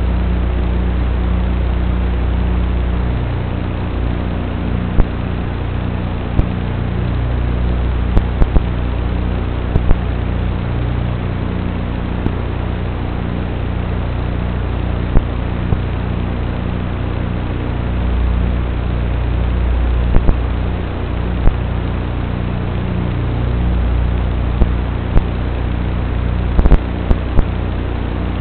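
Steady electrical hum and hiss with scattered sharp clicks: noise on the audio track of an analog FPV goggle recording. It stays the same whether the quad is disarmed or flying, so it doesn't follow the motors.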